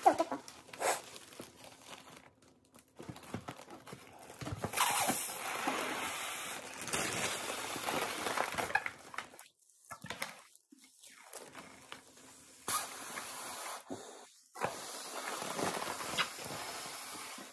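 Silver foil balloons crinkling and rustling as they are squeezed flat and folded by hand, in irregular stretches with short pauses.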